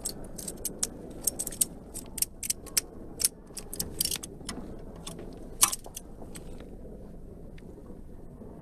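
A bar of soap and a small carving blade handled on a metal tray: a run of sharp, irregular clicks and light taps, the loudest a little past halfway. They thin out over the last couple of seconds as the blade begins to cut into the soap.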